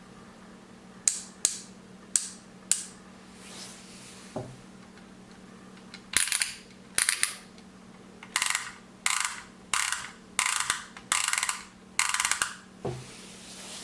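Plastic toy construction vehicles being handled: a few sharp plastic clicks, then a run of short rasping, ratchet-like bursts, roughly one a second.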